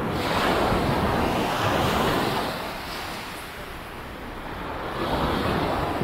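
Sea waves washing onto a beach: one wave surges in right at the start and ebbs away by the middle, and the next swells in near the end.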